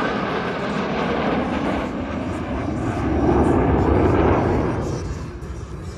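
Jet engine roar of the Thunderbirds' four F-16 Fighting Falcons flying past in formation, swelling about three seconds in and fading near the end.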